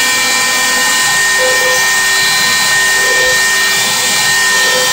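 Bosch 1 HP trim router used as a CNC spindle, running at speed with a steady high-pitched whine over motor and fan hiss.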